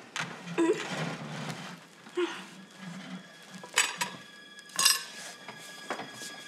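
Cutlery and plates clinking at a meal table: a series of separate sharp clinks, two of them about halfway through ringing on briefly.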